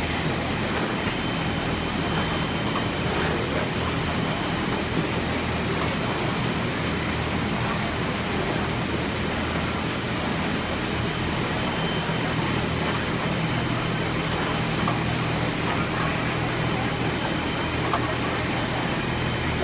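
Steady noise of printing-shop machinery running: an unchanging blower-like rush with a low hum and a faint high-pitched whine.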